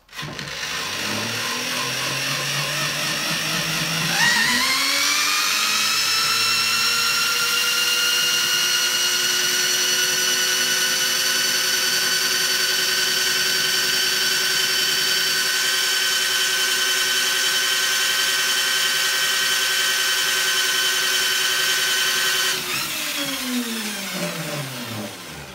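Electric drill spinning a three-phase motor used as an alternator by its large pulley, the alternator's rectified output running a DC motor. A whine rises sharply about four seconds in, holds steady, then winds down from about 22 seconds in.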